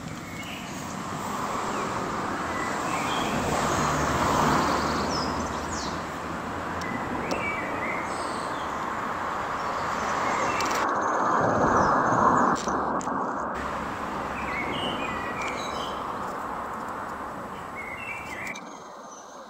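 Road traffic passing, swelling and fading away twice, with short bird chirps over it.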